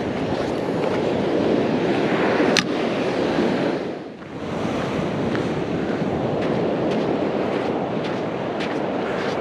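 Ocean surf washing ashore as a steady rush, mixed with wind buffeting the microphone. A single sharp click comes about two and a half seconds in.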